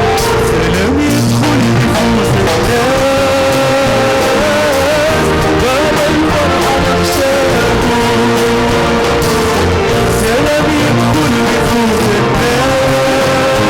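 Band music of a Sudanese Christian hymn, a gliding melody line over a steady bass and beat.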